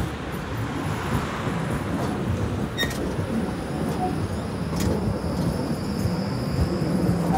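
Tram running with steady rumbling noise mixed with road traffic, growing a little louder near the end as the tram draws closer. Two sharp clicks, a little under three seconds in and again about two seconds later, and a faint high whine sets in with the second one.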